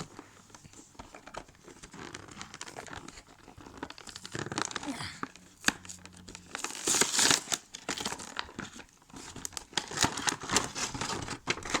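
Toy packaging being opened by hand: crinkling and tearing in irregular bursts with small clicks, loudest about seven seconds in and again near the end.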